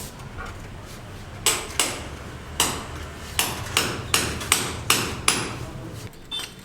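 A hammer striking repeatedly, about ten sharp blows from about a second and a half in, two to three a second.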